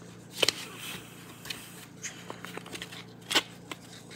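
Crinkling of a folded paper leaflet being opened and handled: a few sharp crackles, the loudest about half a second in and again near the end, with lighter rustles between.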